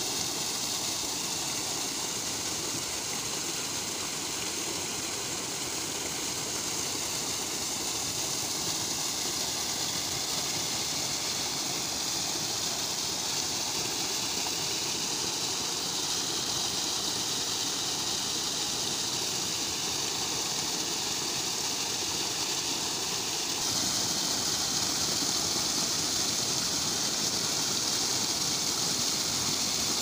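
Muddy runoff water pouring over a low earthen bank and splashing into a flooded channel below, a steady rushing. It gets a little louder about two-thirds of the way through.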